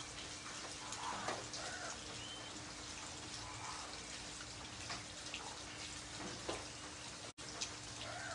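Heavy rain falling on a wet paved road, an even patter and splash of drops on the surface and puddles.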